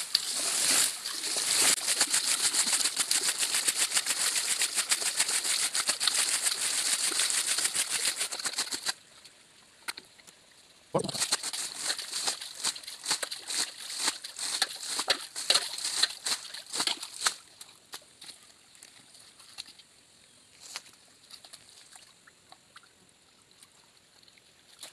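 Water in a shallow muddy stream pool being splashed and thrown out by hand, continuously for about nine seconds, then again after a dull knock near eleven seconds, before dying down to faint trickling and the odd drip. This is bailing the pool to expose crabs.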